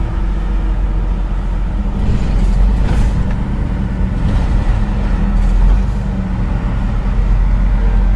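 Scania R truck's diesel engine running with a steady low rumble as the truck creeps along at low speed.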